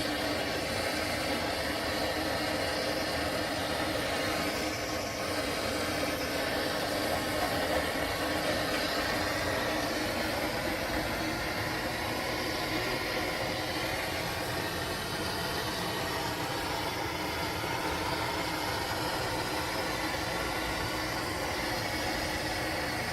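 A motor or engine running steadily, an even mechanical drone with no breaks.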